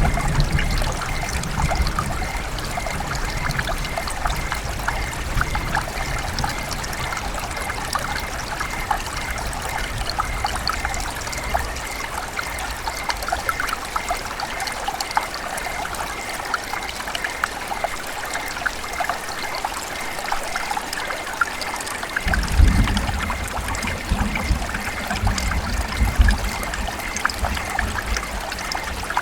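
River water trickling and babbling in a steady, crackling flow, with deeper rumbling swells at the start and again about three-quarters of the way in.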